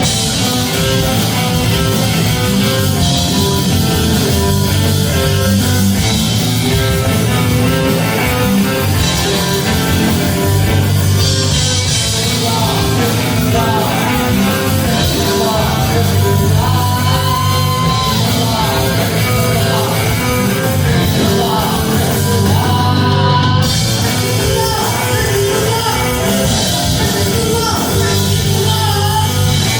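Live heavy metal band playing: electric guitars, bass guitar and drum kit, with a lead singer holding long notes over them.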